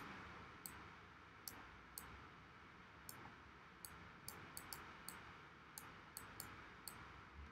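Faint, sharp computer mouse clicks, about a dozen at irregular intervals, over near-silent room tone.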